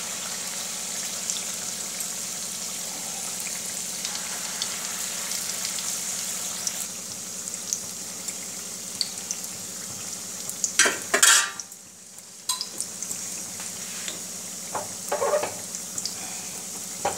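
Gulgule (balls of wheat-flour and jaggery batter) deep-frying in hot oil in a kadhai: a steady sizzle. About eleven seconds in there is a short loud clatter, the sizzle briefly drops away, and a few smaller clatters follow a few seconds later.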